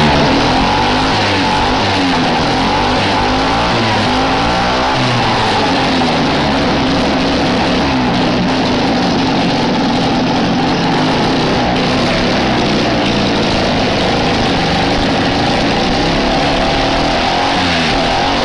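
Sachs 110 single-rotor Wankel rotary engine, peripheral-ported, taken from a 1964 post hole borer, running steadily with its pitch wavering slightly.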